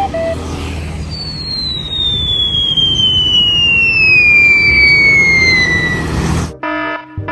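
A long whistle falling steadily in pitch over about five seconds, over a low rumbling noise. Both cut off suddenly near the end, and a repeating electronic beeping starts.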